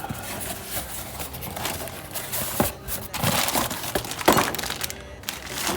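Packaging around a new control arm crinkling and rustling as it is handled, with a few sharp knocks.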